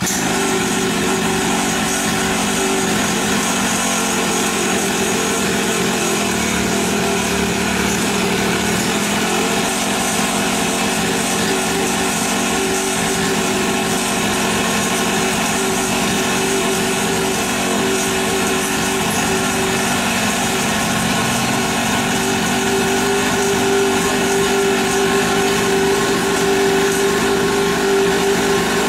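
Small 50cc two-stroke mini dirt bike engine, pull-started, running steadily at one even pitch after catching at once. It is a sign that fuel has reached the carburettor, so one light pull is enough to start it. It gets a little louder in the last few seconds.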